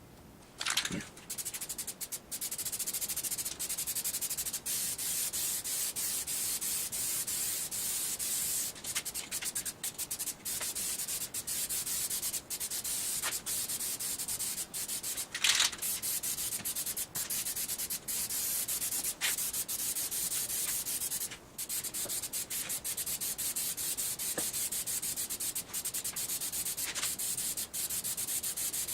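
Aerosol can of SEM primer spraying onto a plastic bumper cover in light passes: a steady hiss broken by short pauses between strokes. A few short, sharp sounds stand out, the loudest about halfway through.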